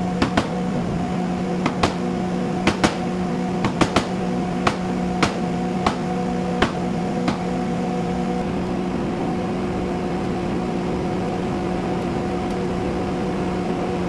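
About a dozen sharp knocks at irregular intervals, stopping about halfway through: a hammer striking a wood chisel to cut the recess for a door striker plate in the jamb. A steady mechanical hum runs underneath throughout.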